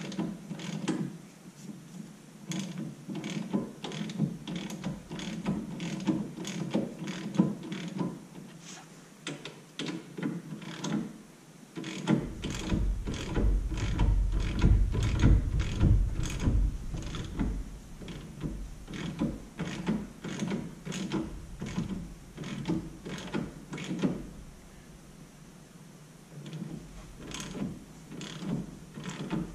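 Hand ratchet clicking in repeated runs as the mounting bolts of a Wilwood brake caliper are run down. A low rumble joins it for several seconds in the middle.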